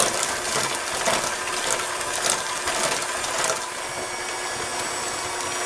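Electric stand mixer running steadily at medium speed, its flat beater churning thick muffin batter in a stainless steel bowl. A spatula scrapes against the bowl now and then in the first few seconds.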